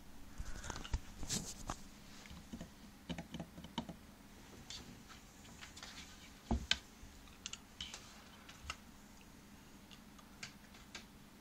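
Irregular light taps and scratches on a wooden shelf as a cat and a hand scuffle on it. They come thickest in the first few seconds, with a sharper knock about six and a half seconds in.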